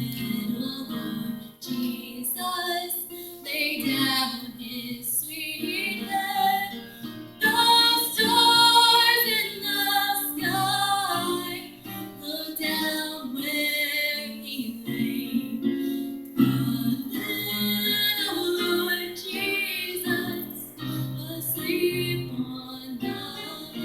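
A junior high school chorus singing, with instrumental accompaniment.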